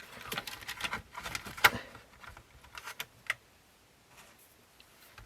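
Scattered light clicks and taps of small plastic and metal parts being handled on a cassette deck under repair, with one sharper click a little under two seconds in, fading out in the second half.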